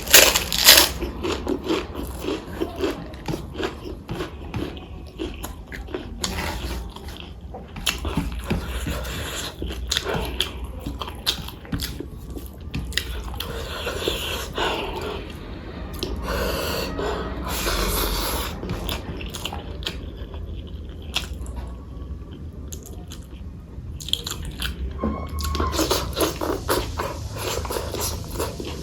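A person chewing and biting food close to the microphone, with repeated crunchy bites and wet mouth sounds.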